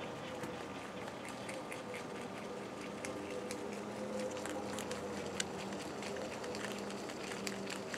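Pet rabbit chewing sunflower greens: a quick, irregular run of small crunching clicks, over a faint steady hum.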